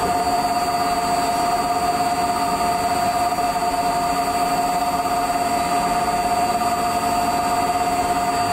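Müga XP4 42 SM CNC lathe running with a steady, even whine from its drives, with fainter overtones above it.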